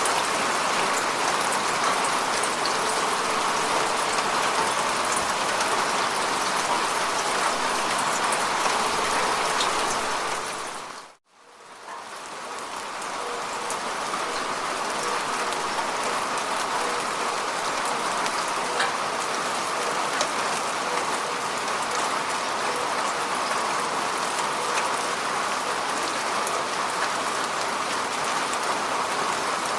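Steady rain falling on lake water: a dense, even hiss of drops striking the surface. About eleven seconds in it fades briefly to silence and then fades back up.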